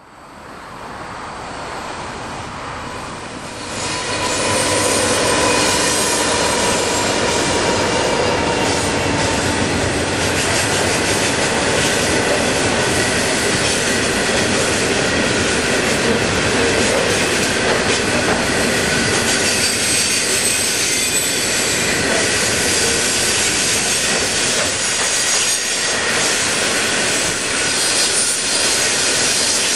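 Freight train of covered hopper wagons rolling past close by: a steady rumble of steel wheels on rail with thin, high wheel squeal laid over it. It builds over the first few seconds as the train draws near, then holds loud and steady as the wagons go by.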